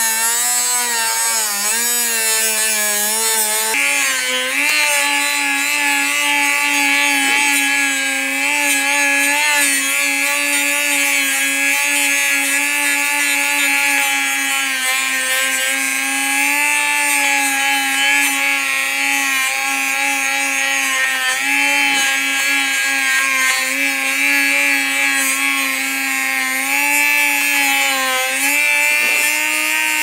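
Dremel rotary tool with a cut-off wheel running steadily and grinding into the steel of a disc padlock to cut it off: a high whine over a gritty grinding hiss. The whine steps up in pitch about four seconds in and dips slightly now and then as the wheel bites.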